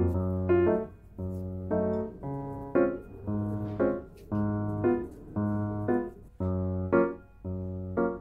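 Background piano music: chords struck in a steady rhythm, about one a second, each ringing on until the next.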